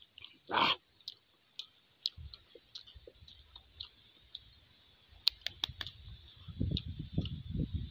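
Balut duck eggshell being cracked and peeled by hand: scattered sharp clicks and crackles, with a quick cluster of them about five seconds in. A short loud mouth sound from eating comes about half a second in, and soft low thumps from handling near the end.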